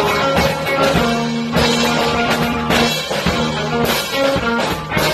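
Live psychedelic rock jam: electric guitar playing trippy held notes over a drum kit, with regular drum and cymbal hits.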